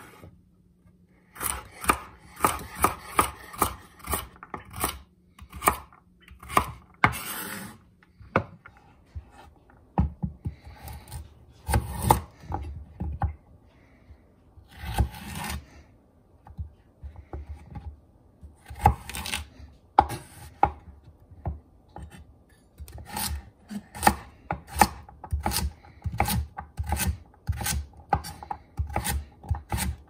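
Chef's knife dicing raw carrots on a wooden cutting board: runs of sharp chops, a few a second, broken by short pauses and a few longer, drawn-out strokes.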